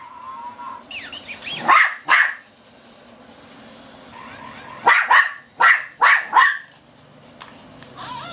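Shih Tzu barking at a toy it is afraid to grab: two sharp barks about two seconds in, then a quick run of five barks about five seconds in.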